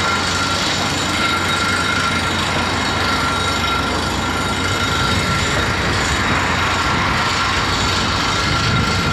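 Komatsu PC228US LC excavator running under load as it swings and works its boom and bucket, a steady machine noise with a high whine held on one pitch.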